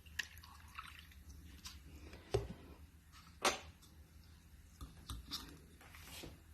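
A few small, quiet drips and splashes of water in a cup of ice, with light clinks, spaced a second or so apart.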